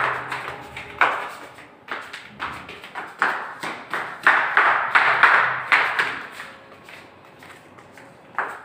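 Footsteps on stone stairs, sharp slapping steps echoing in the stairwell, about one or two a second, growing fainter after about six seconds, with one last sharp tap near the end.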